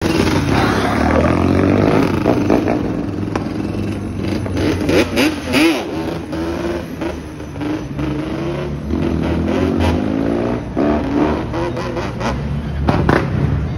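Sport quad ATV engines running and revving, their pitch rising and falling again and again as the riders accelerate and ease off.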